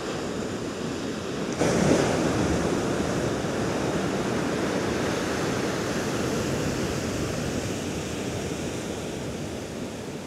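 Sea surf: a wave breaks about a second and a half in, and its whitewater rushes in and slowly fades.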